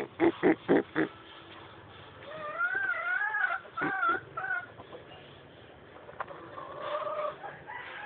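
Domestic fowl calling: a quick run of four or five short clucks at the start, then a longer wavering call that rises and falls in the middle, and a shorter steady call near the end.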